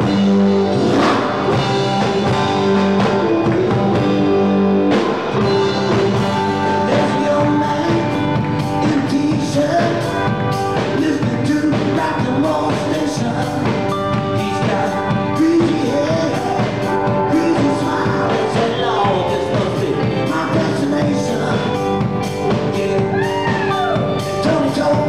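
Live rock-and-roll band playing: drum kit, electric guitars and electric bass.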